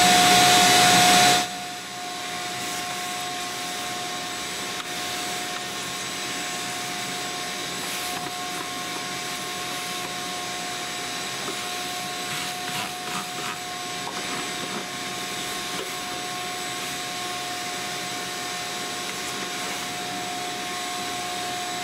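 Ridgid shop vacuum running with a steady whine and rush of air as its hose nozzle draws dust and ash out of a pellet stove's firebox. It is louder for about the first second and a half, then settles to a steady lower level.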